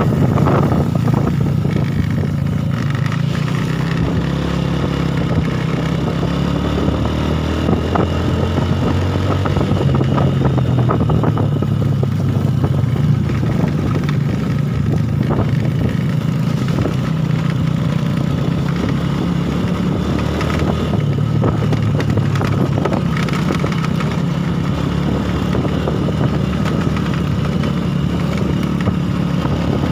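Small four-stroke underbone motorcycle engine running steadily while riding on a dirt road, its pitch rising and falling a little with the throttle, with a few knocks and rattles from bumps.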